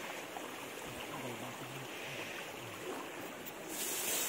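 Shallow river water running over rocks, a steady wash; near the end it turns brighter and louder as someone wades and splashes through the water.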